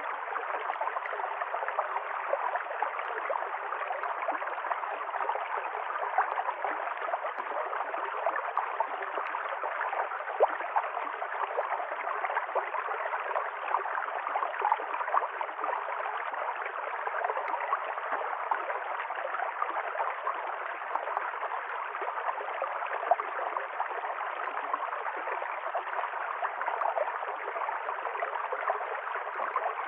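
River stream water running and gurgling steadily over rocks, with a dense patter of small splashes.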